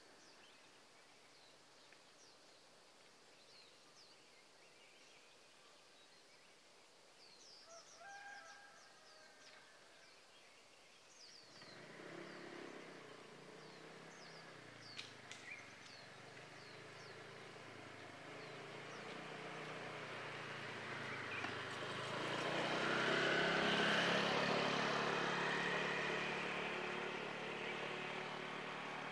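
Birds chirping faintly, then a vehicle engine coming closer from about a third of the way in, growing steadily louder until it is loudest near the end.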